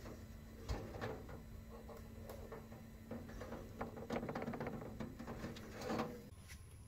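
Scattered light clicks and taps of small objects being handled, thickest a few seconds in, over a faint steady hum that stops near the end.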